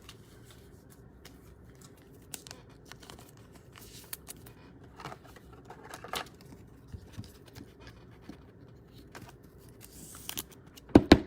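Quiet handling of trading cards and their packaging: soft rustles and scattered light clicks, with a few sharp taps near the end.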